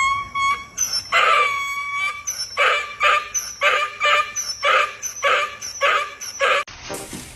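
An animal calling in pitched, high cries: a longer call, then a quick run of short calls at about two a second.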